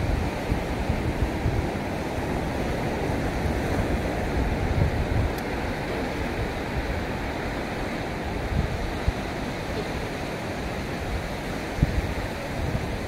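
Wind gusting on the microphone over a steady hiss of sea surf, with uneven low rumbles from the gusts.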